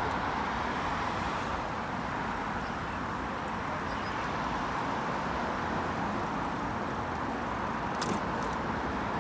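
Steady road traffic noise from cars on a wet city road, with a short click about eight seconds in.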